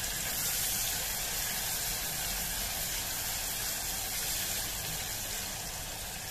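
Chopped onions frying in hot oil in an aluminium pressure cooker, a steady sizzle as they are cooked toward golden.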